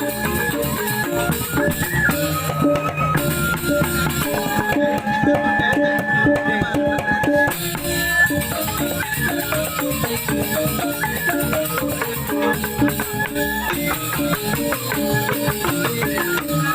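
Joged bumbung music: a Balinese bamboo gamelan playing a fast, dense run of struck pitched notes over drums.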